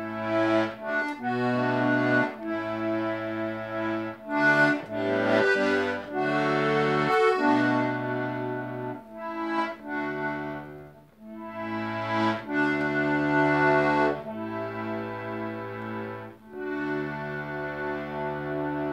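Small button melodeon playing a tune, a melody over alternating bass and chord notes, with a short break a little past halfway. Its newly fitted reeds have not yet been tuned.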